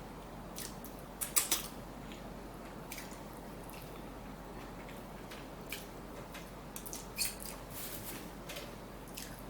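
Close-miked eating sounds: a person chewing and biting into a fish taco, with scattered short wet clicks of the mouth. The loudest clicks come in a cluster about a second and a half in, with more around seven seconds.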